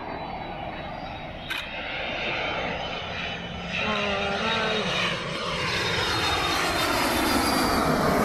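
Twin-engine jet airliner on final approach passing low overhead, its engine noise building steadily and loudest near the end. A single sharp click about one and a half seconds in.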